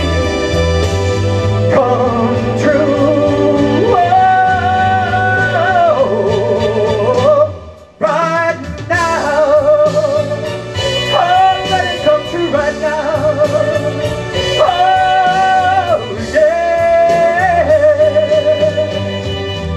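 Live band and singing in a gospel-style ballad, with long held sung notes that waver in pitch. The music drops out briefly about eight seconds in, then comes back.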